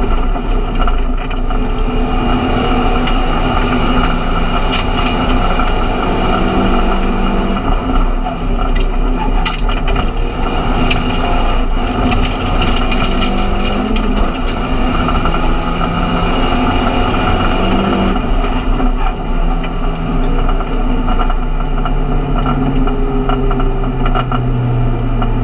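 In-cabin sound of a Seat Leon Supercopa MK1 race car's turbocharged four-cylinder engine driven hard. Its pitch climbs and drops again and again with gear changes and braking, over loud road and cabin noise with scattered sharp clicks and rattles.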